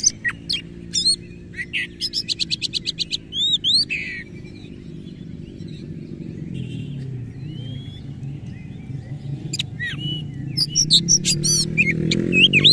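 Oriental magpie-robin singing loud, varied song: a fast run of about ten repeated notes and rising whistled sweeps in the first few seconds, scattered calls through a lull, then a fresh burst of song about ten seconds in. A low droning hum runs underneath and swells near the end.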